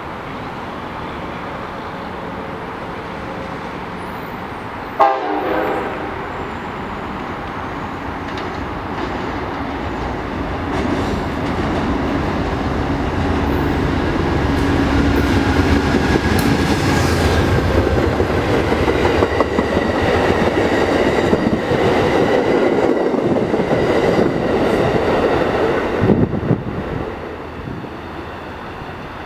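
Amtrak Northeast Regional train led by an AEM-7 electric locomotive approaching and passing at speed. Its horn sounds as it comes on, over a growing rumble and clatter of wheels on rail, with a brief sharp bang about five seconds in. The train sound cuts off suddenly near the end.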